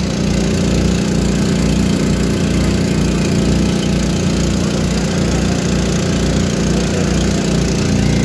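A passenger boat's motor running steadily, heard from on board: a continuous low hum with a slow, regular throb underneath.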